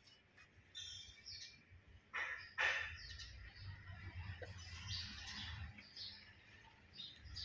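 Small birds chirping faintly and intermittently, with a brief rustle a little past two seconds in.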